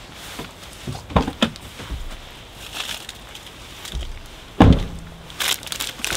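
Footsteps and a few light knocks as things are handled, then a heavy thump about four and a half seconds in as the INEOS Grenadier's side door is shut. Puffer-jacket fabric rustles close by just after.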